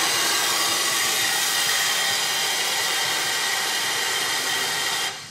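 Small electric blower motor running steadily with a rushing whine, cut off abruptly near the end.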